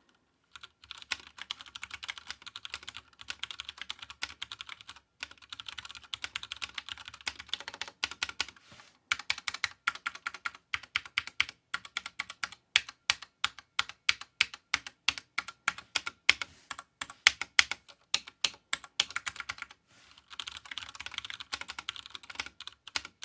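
Typing on a Ducky One 2 Mini mechanical keyboard with Cherry MX Brown switches: a steady stream of key clacks, faster in runs at the start and near the end, with slower, more separate keystrokes in the middle.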